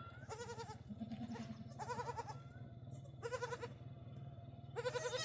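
Goats bleating: four short, quavering bleats about a second and a half apart, over a steady low hum.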